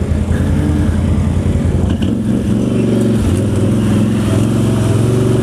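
Can-Am Renegade ATV's V-twin engine running close by under light throttle as the quad moves off along a muddy trail. The pitch shifts slightly about two to three seconds in.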